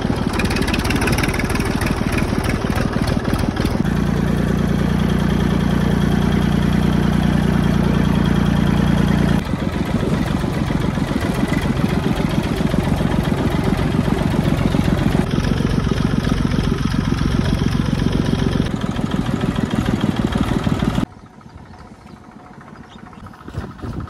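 Farm tractor's diesel engine running as the tractor drives along, with a steady, fast low chugging. The note holds stronger and steadier for a few seconds early in the run, and about three seconds before the end the sound drops sharply to a much quieter level.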